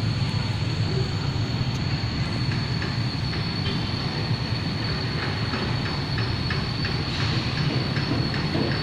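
Steady rumbling background noise with a constant thin high-pitched whine, and faint scattered scratches and ticks.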